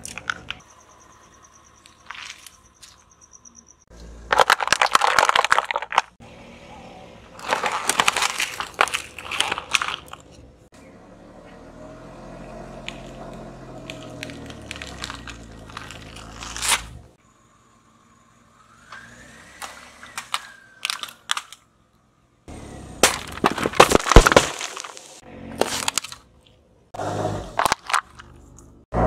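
A car tyre rolling over and crushing a series of objects: loud bursts of crunching, cracking and splitting, several seconds apart, with quieter stretches between.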